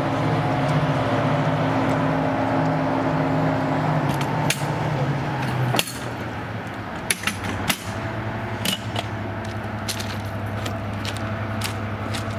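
Class 55 Deltic diesel locomotive with its Napier Deltic two-stroke engines running steadily. The drone drops in level about six seconds in, and several sharp clicks and knocks come through over the second half.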